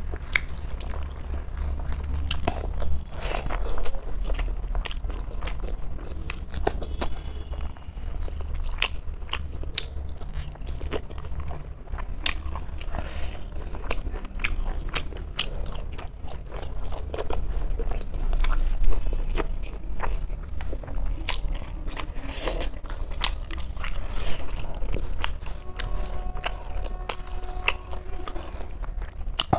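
A person eating close to the microphone, chewing and crunching food, with many irregular sharp crunchy clicks over a steady low hum.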